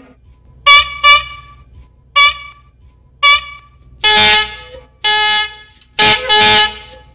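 Novelty toy horns tooting: two quick short toots, two single toots, then four longer, brighter blasts in the second half.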